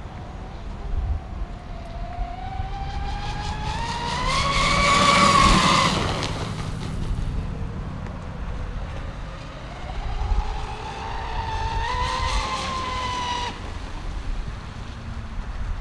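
Pro Boat Zelos 36 Twin RC catamaran's twin brushless electric motors whining at high speed across two passes. The pitch climbs to a loud peak about five seconds in and fades. It climbs again from about ten seconds in and cuts off suddenly near the end. Wind rumbles on the microphone throughout.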